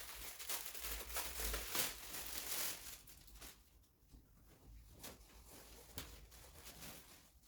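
Handling noise: rustling and light knocks as the light-stand kit is moved and adjusted by hand, busiest in the first three seconds and quieter after.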